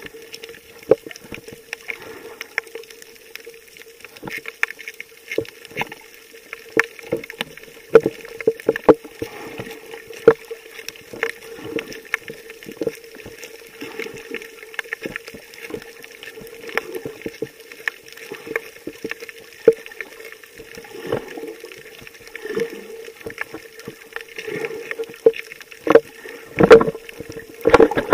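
Underwater sound heard through a camera's waterproof housing: a faint steady hum with many scattered sharp clicks and water gurgles, growing louder with a cluster of heavier knocks and sloshes near the end.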